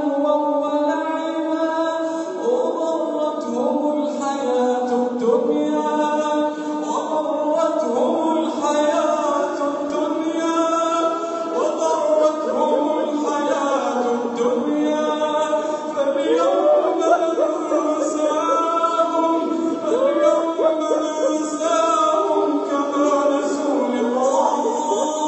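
Quran recitation chanted in a slow, melodic style, the voice drawing out long, wavering, ornamented notes without a break.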